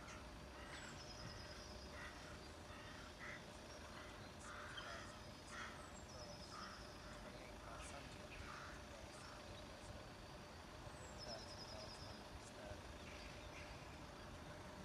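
Small birds calling faintly: a short rapid trill repeated three times, about five seconds apart, among scattered short chirps, over a faint steady hum.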